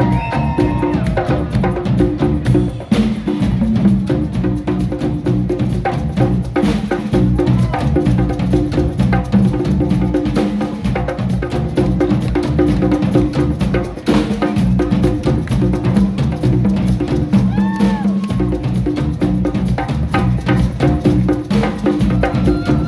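Live Latin rock band playing a percussion-driven groove: drum kit and hand percussion keep a steady repeating rhythm over bass, with a few bending melody notes about two-thirds of the way through.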